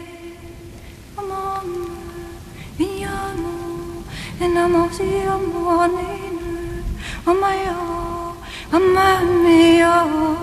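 A woman singing a slow melody in long held notes, about five phrases, each sliding up into its first note, with short breaths between.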